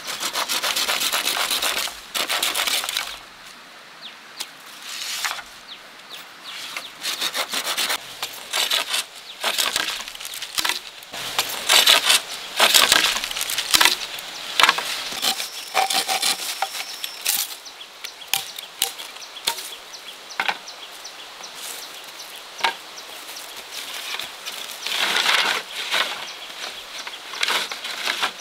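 Wood being worked by hand: irregular runs of rough rubbing and sawing strokes with short pauses between them.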